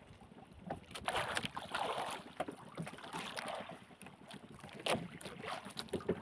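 Water splashing and lapping against a small boat's hull in two longer washes, with scattered clicks and knocks as the handline is worked over the side.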